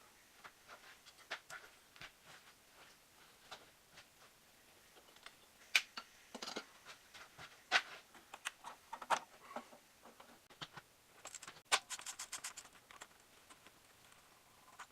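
Scattered faint clicks and clinks of hand tools on metal during work under the vehicle, with a quick run of rapid clicks about twelve seconds in.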